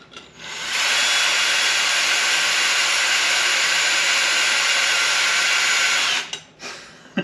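Electric drill spinning a stainless steel mix-stir paddle in a plastic fermenter full of honey and cold-brew-coffee mead must. The drill spins up, runs steadily for about five seconds and stops, whirling the must into a vortex to mix it.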